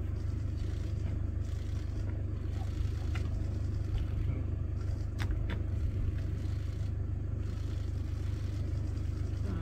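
A vehicle's engine idling with a steady low hum, with a couple of faint clicks.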